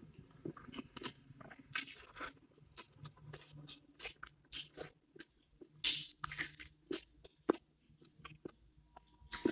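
Close-miked eating: a person biting and chewing food with irregular crunches and wet mouth clicks, a few louder crunches a little past the middle.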